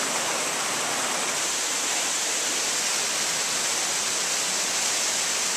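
Waterfall rushing down rock in a gorge: a steady, unbroken hiss of falling water.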